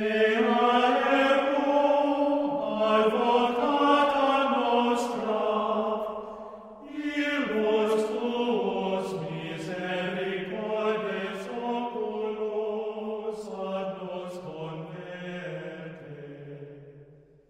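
Gregorian chant sung by a men's schola: unison male voices in long, flowing phrases. There is a brief pause about seven seconds in, and the singing fades out near the end.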